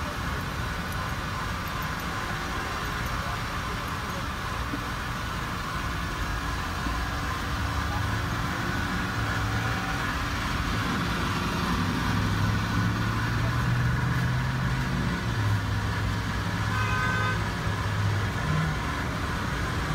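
Outdoor road-traffic and vehicle noise: a steady hiss with a low engine hum that grows stronger over the second half, and a brief higher tone near the end.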